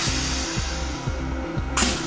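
Background music with a steady beat, over the hiss of compressed air from the piston filler's pneumatic cylinder: one hiss fades out over the first second, and a second short hiss comes near the end.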